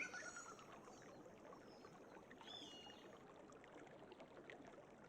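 Faint, steady water flow of a forest stream, with bird calls: a trill fading out right at the start and one short whistled note about two and a half seconds in.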